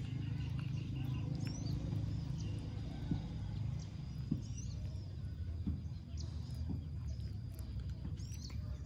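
Baby otter chewing raw catfish, with a few sharp crunching clicks, over a steady low rumble. Short high bird chirps come now and then.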